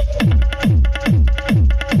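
Electronic dance music played loud through a DJ sound system as a sound-check test track: a deep kick drum that drops in pitch on each beat, about four beats a second, with short repeating synth notes over it.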